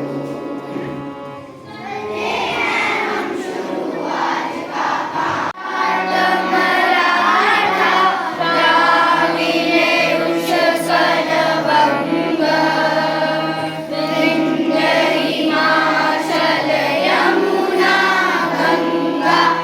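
A group of children singing together in chorus with musical accompaniment, growing louder and fuller about five and a half seconds in.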